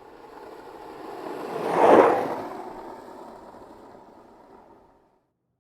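Whoosh transition sound effect: a rushing noise that swells to a loud peak about two seconds in, then fades away.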